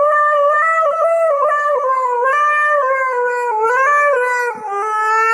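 Siberian husky howling: one long howl that steps up and down in pitch like singing and sinks gradually, with a brief break about four and a half seconds in.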